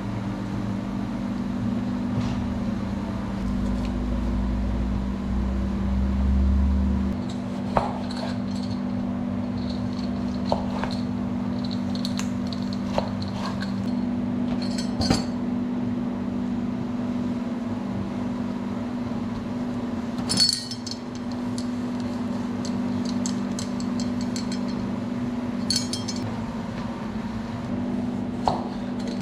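Cooking utensils clinking and knocking against metal pans and dishes now and then, about half a dozen sharp clinks over a steady low hum.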